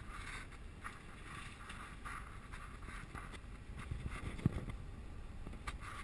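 Steady engine and road rumble heard inside a moving car's cabin, with one sharp thump about four and a half seconds in.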